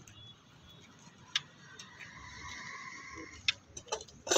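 Hand-operated Hilti adhesive dispenser being handled: a sharp click, a steady high squeak lasting about a second and a half, then a quick run of clicks near the end.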